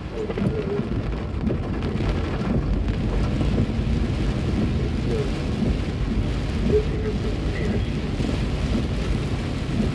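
Heavy rain beating on a car's roof and windshield, heard from inside the moving car over a steady low rumble.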